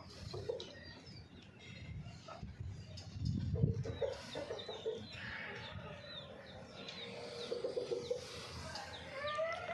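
Hens clucking in short runs of repeated notes, with many high chirps throughout and a rising call near the end. A low rumble about three and a half seconds in is the loudest thing.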